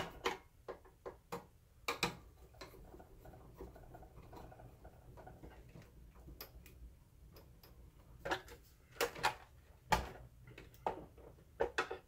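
Hand screwdriver tightening the lamp screws in a DLP projector's plastic lamp bay: irregular light clicks and taps of the tool and housing, fewer in the middle, with a sharper knock about ten seconds in.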